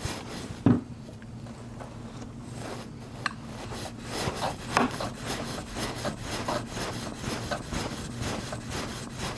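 A hair-shear blade honed on a fine 2000 grit sharpening stone: repeated rubbing strokes of steel on the stone, the smoothing stage after a coarser stone was used to grind back a nick at the tip. A single knock comes a little under a second in.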